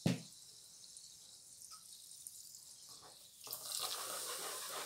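A knock as a bottle is set down on the table, then sparkling water fizzing faintly in a glass. About three and a half seconds in, the sparkling water is poured into a bowl of pancake batter and the pour and fizz grow louder.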